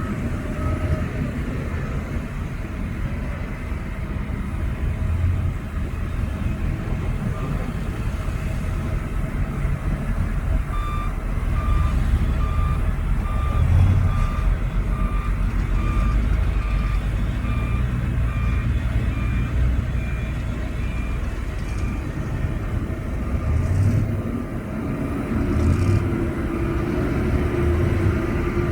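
Heavy diesel earthmoving machinery running with a steady deep rumble. A reversing alarm beeps at an even pace, a little over one beep a second, through the middle stretch and faintly at the start.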